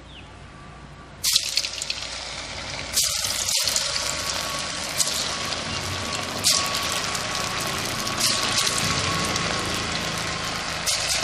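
Marinated fish pieces dropped into hot oil in a kadai, sizzling: the frying hiss starts suddenly about a second in and surges again at about three and six and a half seconds as more pieces go in, then carries on as a steady loud sizzle.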